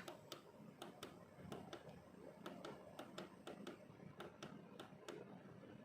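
Near silence: faint room tone with light clicks, a few a second, not quite evenly spaced.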